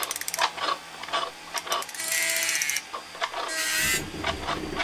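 Mechanical sound effects for animated machinery: a run of quick ratchet-like clicks, then two whirring slides, one about two seconds in and another shortly before the end.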